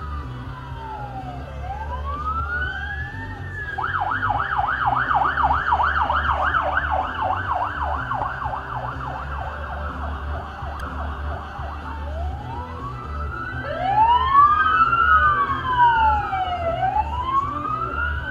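Emergency vehicle sirens approaching: a slow rising-and-falling wail switches about four seconds in to a fast yelp, about four cycles a second, then goes back to a wail. Near the end a second siren joins, the two wails out of step.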